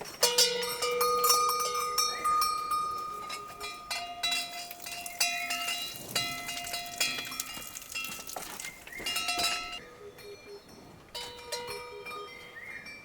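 Cowbells on cattle clanking at irregular intervals, each strike leaving metallic ringing tones that hang on for a second or more; the clanking thins out near the end.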